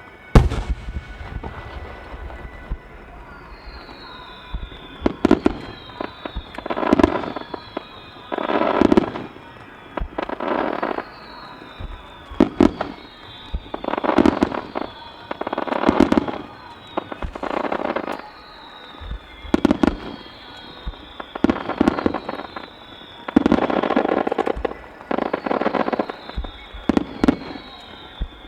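Fireworks display: aerial shells going off one after another, a sharp bang every one to two seconds, each fading out over about a second, with high falling whistles between many of them and music playing underneath.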